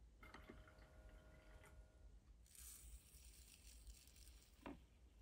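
Faint sounds of miniature tea-set handling. A light clink with a short ring from the tiny porcelain jug, then a soft hiss of granulated sugar pouring from a small paper packet into a miniature porcelain sugar bowl. A single light tap comes near the end.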